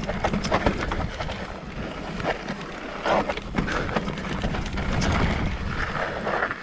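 Wind buffeting the microphone, a steady rumbling noise, with many irregular clicks and knocks through it.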